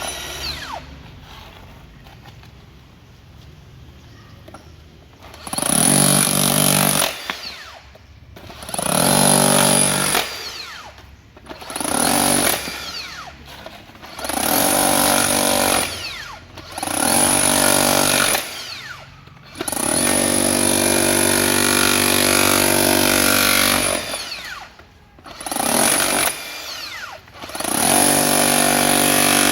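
Makita HR005G 40V cordless rotary hammer (40 mm, 8 J) running in repeated bursts, about eight in all, each one to four seconds long, with a steady high whine over the hammering; the longest run comes about two-thirds of the way in.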